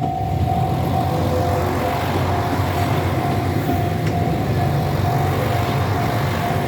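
Level crossing warning bell ringing over and over in a steady repeating tone, over the loud low rumble of a JR Shikoku train passing over the crossing.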